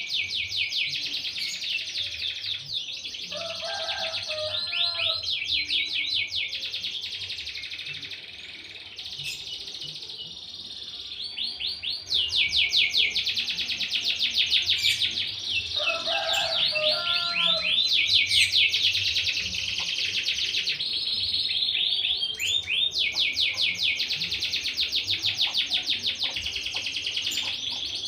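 Domestic canary singing: long, fast rolling trills of rapidly repeated high notes, with brief lower chattering phrases about four and sixteen seconds in. The song softens for a few seconds in the middle, then comes back louder.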